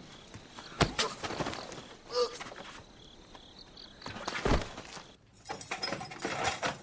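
Faint cricket chirping with a few sharp knocks, the loudest about a second in and again about four and a half seconds in.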